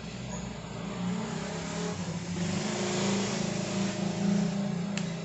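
A motor vehicle engine running nearby, its low hum growing louder over the first four seconds, with a few sharp clicks near the end.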